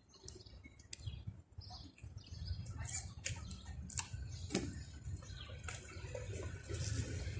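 Outdoor city street ambience: a steady low rumble with scattered sharp clicks and short high chirps.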